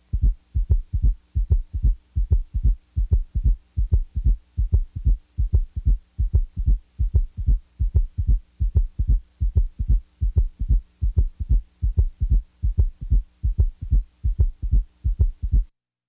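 Recorded auscultation heart sounds: a regular heartbeat with about two beats a second and a faint steady hum beneath, cutting off near the end.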